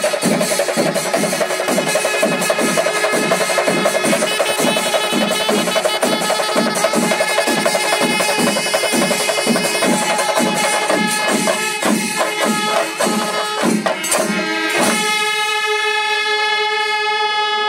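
Kerala temple percussion ensemble: chenda drums beaten in a steady, even rhythm under long held notes from curved kombu horns. About fourteen seconds in, the drumming drops away and the kombu horns carry on alone on held notes.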